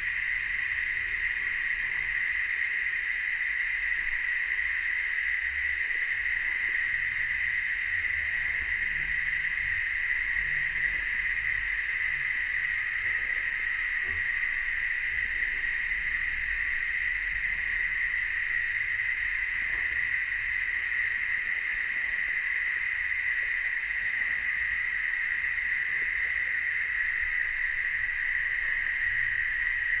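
Cicadas in chorus, a steady unbroken drone.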